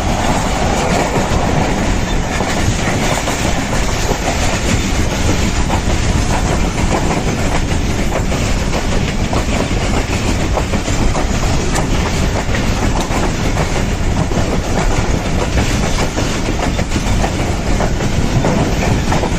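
Pakistan Railways train running on the track: a steady loud rumble of wheels on the rails with many quick clicks.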